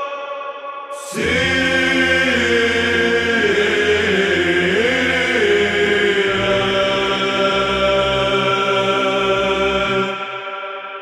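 Byzantine chant in the first mode sung by a small psaltic group: a melodic line moving slowly over a low held drone note (the ison). A new phrase with the drone starts about a second in, and near the end the drone stops and the last note fades.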